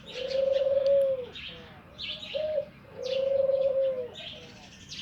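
Doves cooing, a short note followed by a long, drawn-out coo, twice, with small birds chirping throughout.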